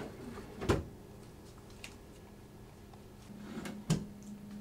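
A wooden desk drawer: a sharp knock about a second in, then the drawer sliding open with a scrape that ends in a thump near the end, over a faint low steady hum.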